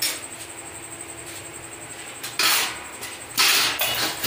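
Kitchen handling noise at an aluminium pressure cooker of rice and water: a click at the start, then two short rushing noises about two and a half and three and a half seconds in, as an ingredient is added to the pot.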